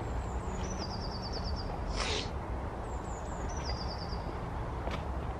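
A small songbird sings the same short high phrase twice, a few falling notes running into a fast trill, over a steady low rumble. A brief swish comes about two seconds in, as a baitcasting rod is swept through a cast.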